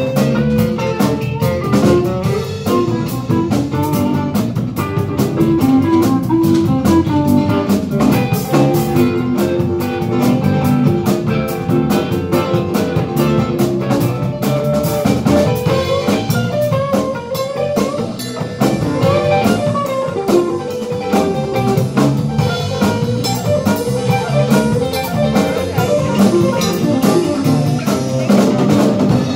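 Live band playing: strummed acoustic guitar and electric guitar over a drum kit, continuous and loud.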